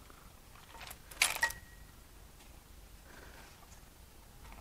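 Metal engine parts clinking: a few light clicks, then one sharp metallic clink about a second in that rings briefly.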